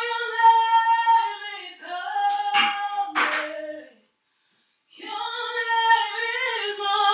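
A woman singing unaccompanied in long held, slightly wavering notes. About four seconds in the sound cuts out completely for just under a second, then the singing resumes.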